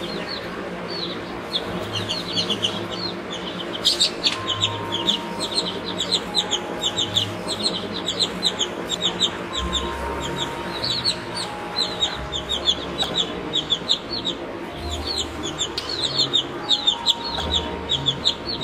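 Baby chicks peeping: a constant stream of short, high, falling peeps, several birds calling over one another.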